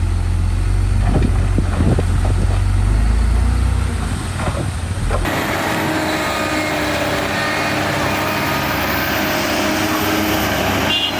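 Heavy diesel construction machinery running, a deep low rumble that changes abruptly about five seconds in to a different, noisier engine sound.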